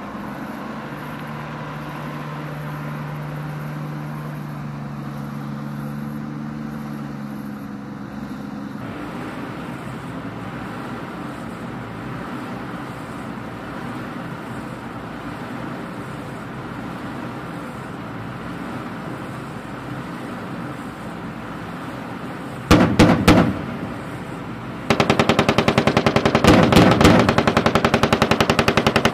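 An LAV-25 light armored vehicle's engine running steadily as it drives past. After a cut come two bursts of rapid machine-gun fire from the vehicle's turret: a short burst about three-quarters of the way in, then a longer one of about four seconds near the end.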